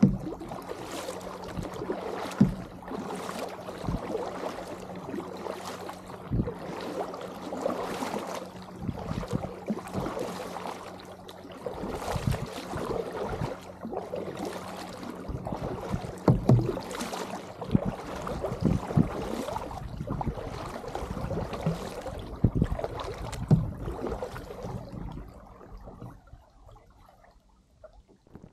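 Double-bladed kayak paddle dipping and pulling through calm water, a splash with each blade stroke roughly once a second, with a few louder thumps among them. The strokes fade out near the end as the paddling stops.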